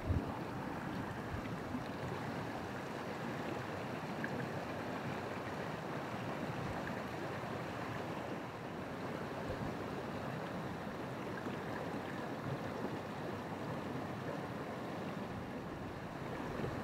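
Small mountain torrent's water rushing steadily over rocks, with a single brief knock at the very start.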